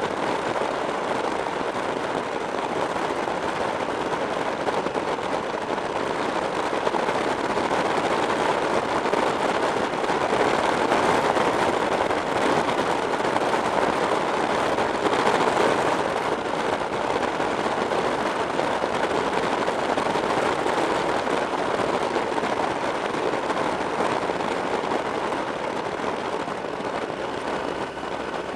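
Wind rushing over the microphone of a camera on a motorcycle at road speed, an even noise with no clear engine note, swelling a little around the middle.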